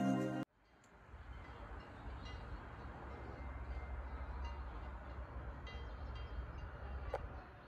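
Background music cuts off about half a second in. Then faint outdoor ambience with a low rumble and scattered light, distant tinkling of cowbells from grazing cows.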